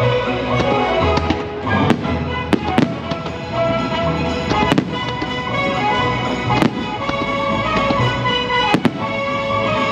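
Fireworks bursting with several sharp bangs, scattered unevenly, over a fireworks-show music soundtrack playing through loudspeakers.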